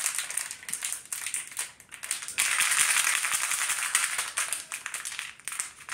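Blind-box pin packaging being handled: scattered clicks and crinkles, then, about two and a half seconds in, a steady dense rustle that lasts about three seconds.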